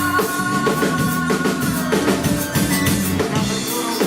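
Live band playing an instrumental passage between vocal lines: drum kit with bass drum and snare hits over bass notes and sustained chords.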